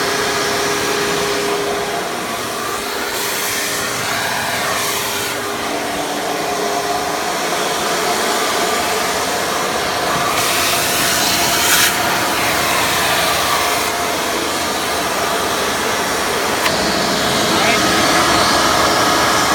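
Hoover Preferred upright vacuum's 12-amp direct-air motor running in tool mode, drawing air through the hose and an attachment. It is a steady, loud rushing hiss with a constant whine, and the hiss grows stronger twice for a second or two.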